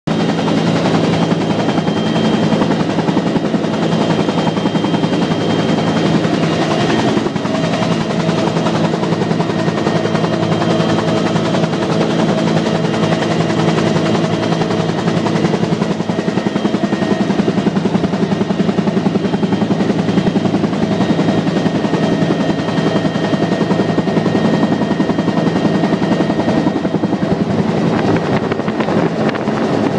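Bell UH-1D Huey helicopter in flight, heard from inside the cockpit: loud, steady rotor and Lycoming T53 turboshaft engine noise, with thin high whines above it.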